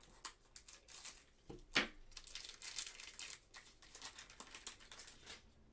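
Foil trading-card pack wrapper crinkling and tearing open in gloved hands, in short irregular crackles with the sharpest one about two seconds in, and the cards inside rustling.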